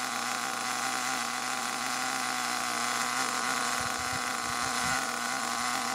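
HPI Savage XL 5.9 nitro engine idling steadily on a stand during its break-in, running in a tank of fuel at standstill.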